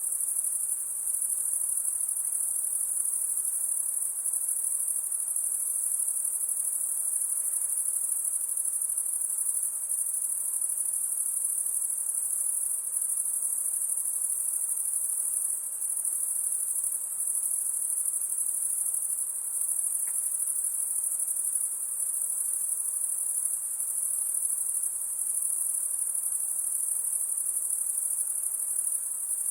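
Dense, steady high-pitched insect chorus, the chirring of many crickets.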